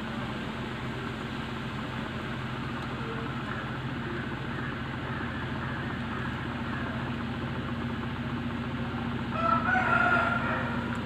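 Small 5-volt CD-drive motor spinning a belt-driven pulley, running with a steady hum. About nine seconds in, a short, louder pitched call sounds over it, like an animal calling in the background.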